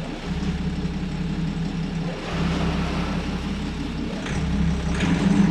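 Boat engine running steadily at low throttle, a low hum, swelling louder twice, most near the end, during a slow docking manoeuvre.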